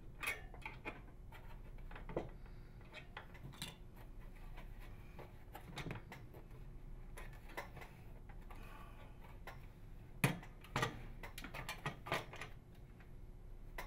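Faint clicks and knocks of a microwave oven door's inner and outer panels being handled and pulled apart, with a few sharper knocks about ten to twelve seconds in.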